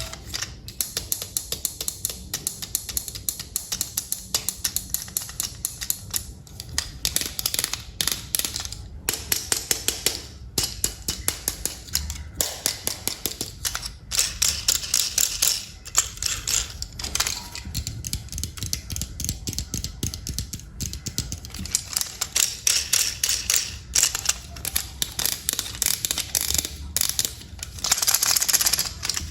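Dense, irregular clicking and tapping of small hard plastic toy-train parts being handled and fitted, with a low steady hum underneath.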